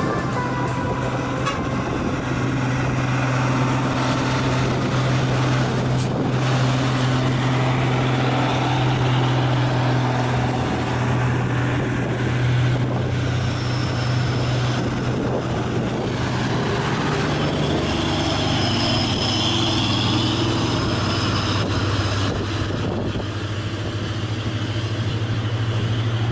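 Heavily loaded tronton truck's diesel engine straining steadily up a steep climb, its pitch dropping a little about two-thirds of the way through.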